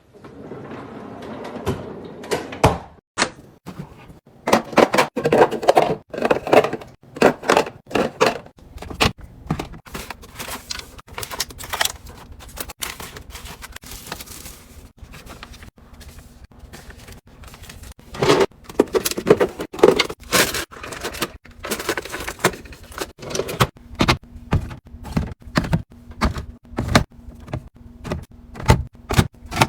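Food containers and packages being handled and set down while restocking a fridge: a steady stream of clicks, knocks and thunks, with rustling in places.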